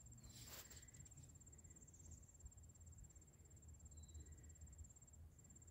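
Faint, high, continuous cricket trill that breaks off briefly near the end, over a low rumble.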